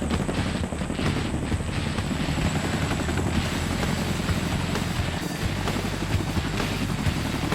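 Boeing CH-47 Chinook tandem-rotor helicopter running, a steady fast rotor chop with a thin high turbine whine over it.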